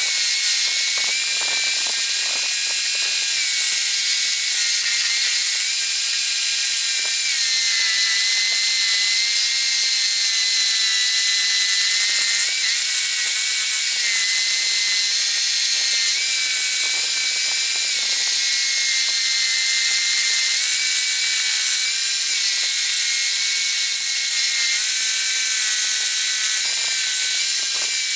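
Homemade scroll saw running, its blade cutting through a wooden board: a steady, high-pitched mechanical rattle whose pitch shifts slightly now and then as the cut goes on.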